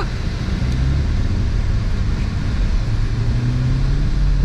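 BMW car engine running in the snow, a steady low drone whose revs climb from about three seconds in.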